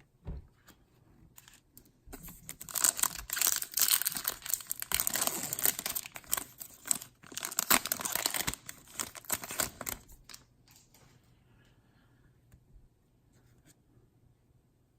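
Foil trading-card pack wrapper being torn open and crinkled, a dense crackling rustle for several seconds, with scattered clicks of cards being handled before and after.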